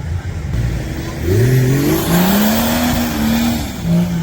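Off-road 4x4 engine revving up about a second in, holding high revs for a couple of seconds with a rushing noise over it, then dropping back near the end.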